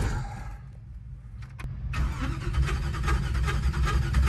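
LS V8 in an S10 burnout truck being started: a click, a couple of quieter seconds, then the engine catches about two seconds in and runs with a rapid, uneven, lumpy beat as it is fired up cold.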